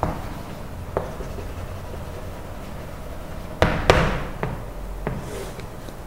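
Chalk knocking sharply against a chalkboard during writing: a few separate taps, the loudest group a little past halfway.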